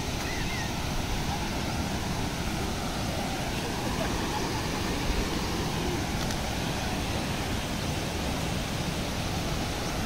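Steady rush of water running down rock cascades at a waterfall, with faint voices in the distance.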